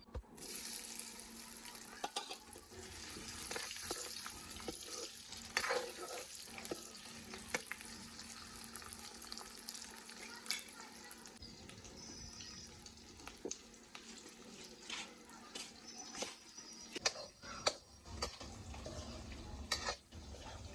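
Food sizzling in a cooking pan while it is stirred, with a spoon scraping and clinking against the pan. The sizzle dies down about halfway through, leaving scattered clinks and knocks.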